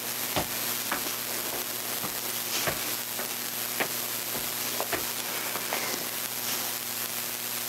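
Steady hiss and faint low hum of room tone, with a few faint, irregular ticks.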